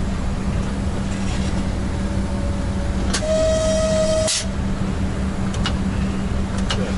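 Steady running rumble and hum of a ChS200 electric locomotive rolling slowly at about 30 km/h, heard inside its cab. About three seconds in, a single horn blast lasts a little over a second, opening and closing with a hiss of air. A few faint clicks follow.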